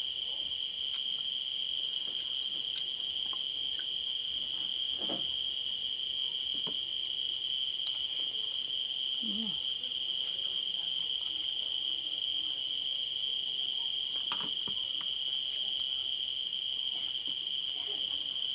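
Crickets trilling steadily in one high, unbroken tone, with a few light clicks of a spoon and fork against a plate.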